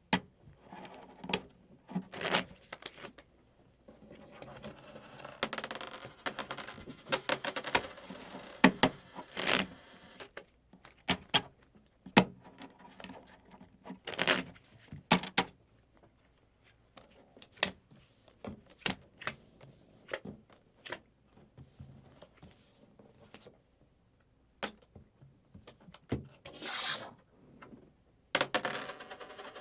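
Playing cards being slid, handled and shuffled across a table among coins. Irregular sharp clicks and clinks from coins are mixed with stretches of brushing and rustling from the cards, with short pauses between.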